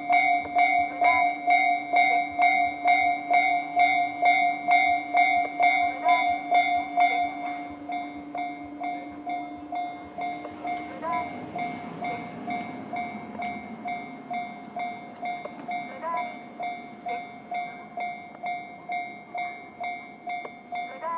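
Japanese level-crossing warning bell in the JR standard electronic sound, ringing at a steady beat of about two and a half strikes a second, becoming quieter about seven seconds in. A 211-series electric train passes through the crossing, its rumble rising about ten seconds in under the continuing bell.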